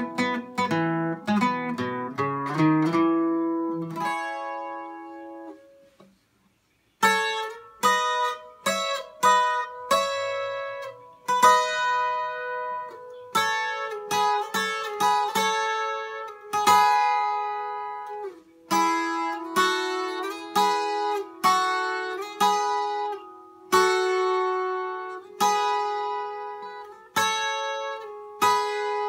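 Takamine EN12C-12 twelve-string acoustic guitar, capoed at the second fret, playing a picked requinto lead in E. A quick run of notes dies away about five seconds in, and after a short pause a melody of single plucked notes rings out one after another.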